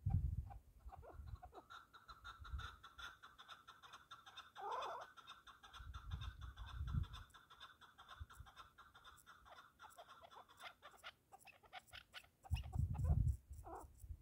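Partridges calling in short repeated clucking notes, with gusts of wind rumbling on the microphone, loudest at the start and shortly before the end.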